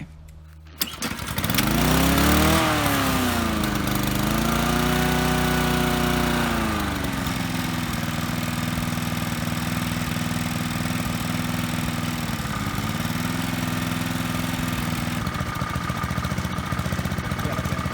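Small lawn mower engine starting up about a second in. Its speed rises and falls twice, then it settles into a steady, even run. The surging has been cured by replacing the governor lever's spring with wire and damping the flap with a taped-on piece of cloth.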